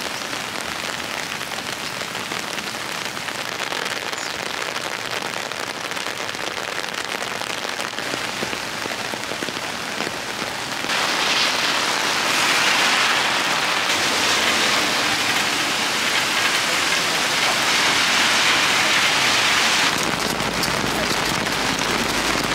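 Heavy rain falling and pattering on wet ground and pavement as a steady hiss, growing louder about eleven seconds in. A low engine rumble from a city bus at the intersection joins near the end.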